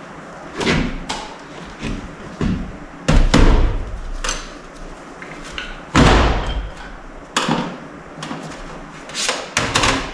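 Powerglide transmission parts being handled and set down on a workbench: a string of irregular metal knocks and clatters, about a dozen over the span, the loudest about three and six seconds in.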